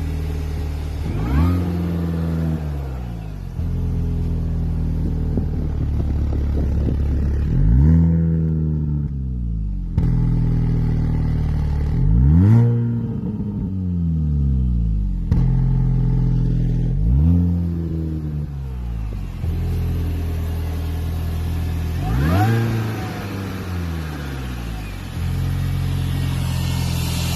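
Supercharged 1.6-litre four-cylinder engine of a 2004 Mini Cooper S R53 JCW at a rough idle. About five times, at uneven intervals, the revs briefly swell and then drop back. The rough idle appeared after head gasket and timing chain replacement.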